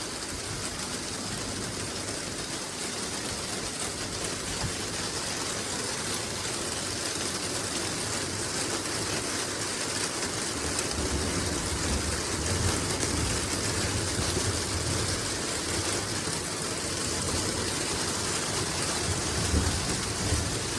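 Heavy rain falling steadily, a dense even hiss. A low rumble swells up about halfway through and again near the end.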